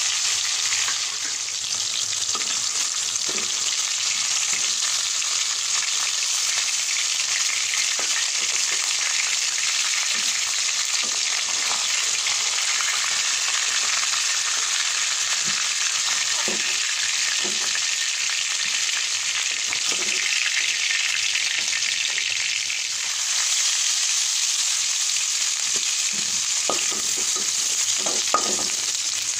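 Hot oil sizzling steadily in a wok as fish steaks shallow-fry, with light clinks of a slotted metal spoon. About 23 seconds in the sizzle gets louder and brighter, and near the end diced pieces are frying in the oil.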